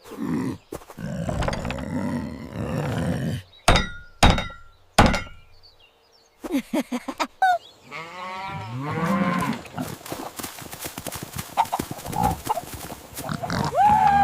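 Animated farm animal sound effects: three sharp thumps, then drawn-out animal calls that bend up and down in pitch, with more short calls and clicks near the end.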